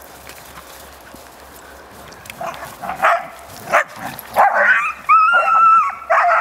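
Dogs play-fighting: from about two and a half seconds in, a series of short rough growling barks and snarls, then one drawn-out high yelp held for about a second that drops at the end, with more snarling after it.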